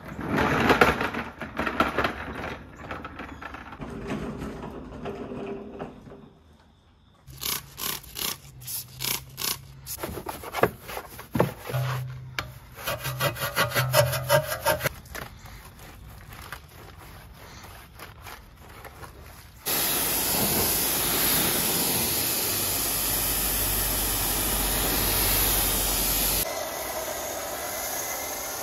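A wheel brush scrubbing a soapy alloy wheel in rapid back-and-forth strokes, then a pressure washer's foam cannon spraying with a loud, steady hiss that starts about twenty seconds in.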